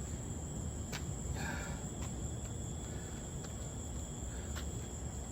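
Crickets chirring steadily in a high, even drone over a constant low rumble, with a few faint clicks and one short call about a second and a half in.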